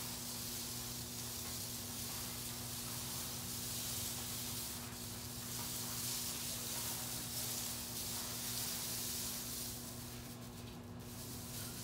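Steady hiss with a low electrical hum underneath, and no other distinct sound.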